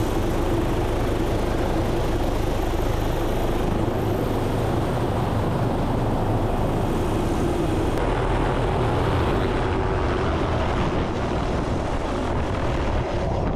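A small turbine helicopter (MD 500) runs loudly at close range, a dense rotor-and-engine noise with a steady hum. It then passes low overhead on lift-off and begins to fade slightly near the end.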